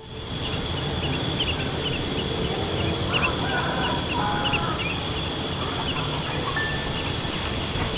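Rural outdoor ambience: small birds chirping again and again over a steady high insect drone, with a domestic fowl calling about three to four seconds in, all over a steady low rumble.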